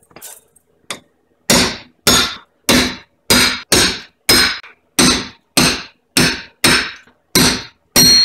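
Hammer blows on a lug nut threaded over an old wheel stud, driving the stud out of a 2005 Pontiac GTO's rear hub flange. After a couple of light taps, about a dozen sharp metal-on-metal strikes come at roughly two a second, starting about a second and a half in, and the last ones ring.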